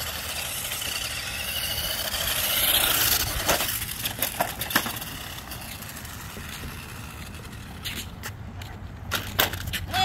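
Toy RC truck's electric motor whining and its tyres hissing on concrete, then a series of plastic clattering knocks from about three and a half seconds in as it crashes into a curb and ends up on its side.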